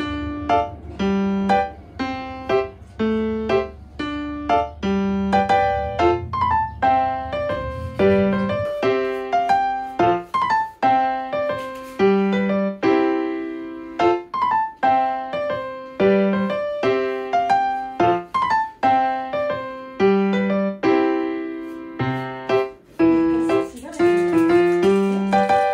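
Background piano music: a light tune of separate notes in a steady rhythm, with a low rumble beneath it for the first eight seconds or so.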